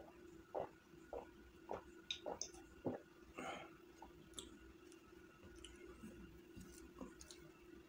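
A person drinking from a glass, five gulps about half a second apart, then a breathy exhale. Faint small clicks follow.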